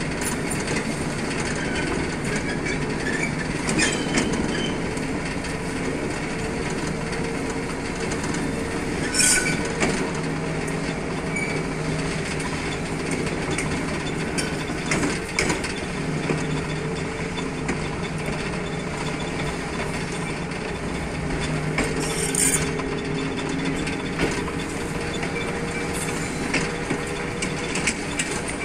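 TGM6V diesel-hydraulic shunting locomotive running along the track: a steady diesel engine note under the rattle and clank of its wheels on the rails, with two brief sharp noises, about a third of the way in and again about three-quarters through.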